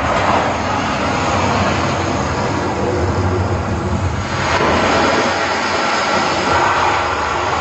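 Sony HT-Z9F sound bar with Z9R rear speakers playing loud, steady, rushing noise from demo content.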